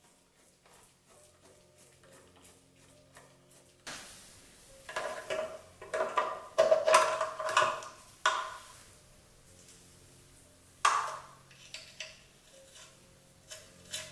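Metal clinking and clattering from hand work on an engine oil pan, bolts and tools knocking against the pan and block: light ticks at first, a busy run of loud clanks in the middle, and one more sharp knock a few seconds later.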